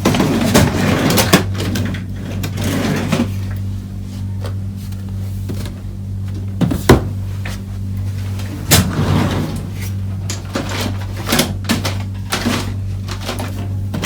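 Scattered clicks and knocks of small tools and parts being handled during hand soldering on an electronics workbench, the sharpest knock about halfway through, over a steady low electrical hum.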